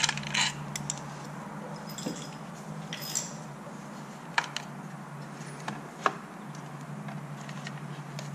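Scattered clicks and clinks of hand tools and small metal parts as a motorcycle's stock air cleaner is taken apart, a sharp tap every second or two, over a steady low hum.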